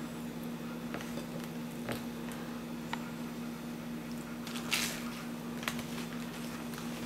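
Someone chewing a sandwich: soft wet mouth sounds and small clicks, with one brief louder noisy sound about five seconds in, over a steady low hum.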